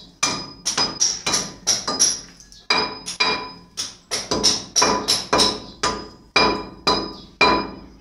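Steel hammer chipping at a concrete stair: repeated sharp, ringing metallic strikes, about three a second, with a brief pause about halfway through.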